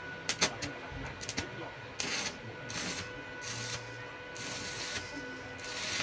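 Stick arc welding on steel rail ends: a few sharp clicks near the start, then the arc crackling in five short bursts of about half a second each.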